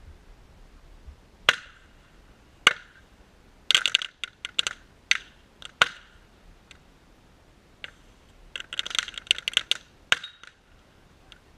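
A string of sharp, irregular cracks and clinks, some single and some in quick rattling clusters, each with a brief ring.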